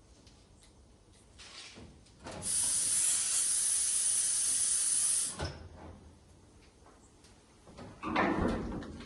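Compressed-air blow gun on a polyurethane hose releasing a steady blast of hissing air for about three seconds, then shorter, rougher bursts near the end.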